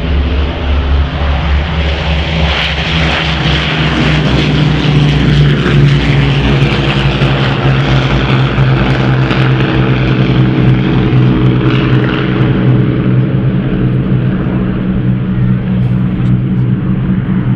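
Avro Lancaster's four Rolls-Royce Merlin piston engines running at high power as the bomber lifts off and climbs away low over the airfield. It is a deep, steady multi-engine drone with propeller noise, loudest about six seconds in.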